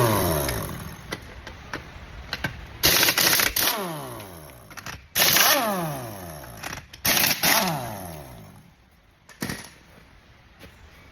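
Impact wrench run in four short rattling bursts about two seconds apart, each followed by a falling whine as the tool spins down after the trigger is released.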